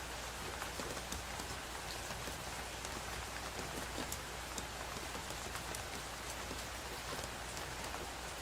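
Steady rainfall: an even hiss with many separate drop ticks and a constant low rumble underneath.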